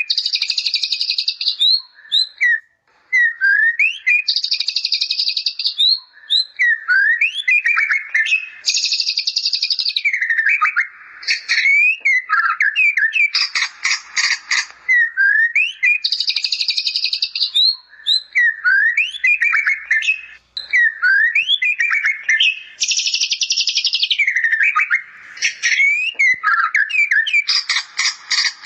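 White-rumped shama singing continuously, its song filled with imitated bar-winged prinia phrases. Loud, dense buzzy trills of a second or two come about every four seconds, with quick sweeping whistled notes between them.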